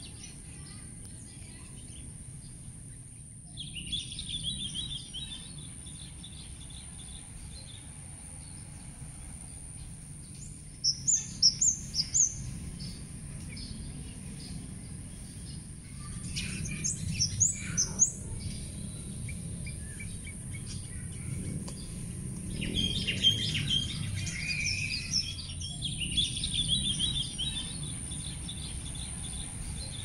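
Small birds chirping in scattered groups, with a cluster of loud, sharp, high chirps about eleven seconds in, another flurry a few seconds later and more chirping in the last part, over a steady low outdoor rumble and a constant high-pitched hiss.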